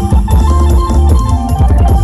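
Loud music with guitar, heavy bass and a steady drum beat, played through a large outdoor-cinema PA system under a sound test.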